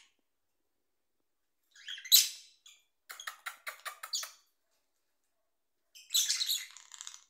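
Small pet parrots chirping: a loud shrill call about two seconds in, a quick run of short chirps a second later, and another loud burst of calls near the end.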